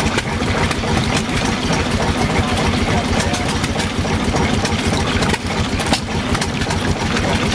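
Several antique stationary gas engines running together, a steady overlapping chugging with many small clicks.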